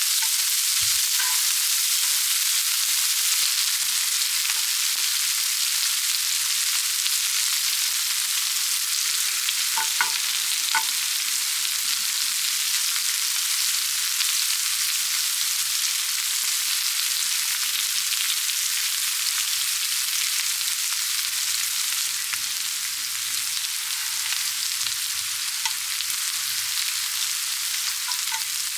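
Food frying in oil on a hot pan, a steady sizzle, with a couple of light utensil clicks about ten seconds in.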